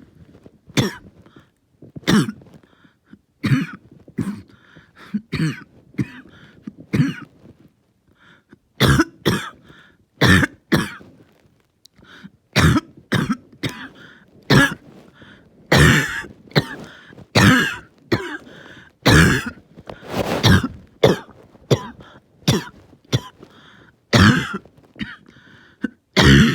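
A person in a prolonged coughing fit: a long run of harsh coughs, one after another, with a brief lull about a third of the way through before they come thicker and closer together.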